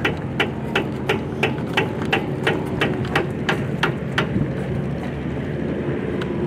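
Hammer blows on car-body metal, about three sharp knocks a second, roughly a dozen in all, stopping a little past the middle. Under them runs the steady hum of an idling engine.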